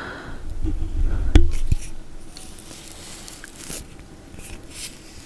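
Close-up mouth sounds while eating peanut butter: soft sticky clicks and smacks, with a dull low thump and a sharp click about a second and a half in.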